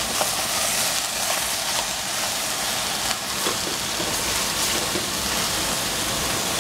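Zucchini and yellow squash sizzling in a stainless steel pan over a gas flame: a steady hiss with a few faint clicks of a wooden spatula.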